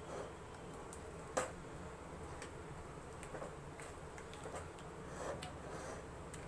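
A spatula stirring thick, sticky halva in a stainless steel pan, with scattered light clicks and taps of the spatula against the pan. The sharpest click comes about a second and a half in.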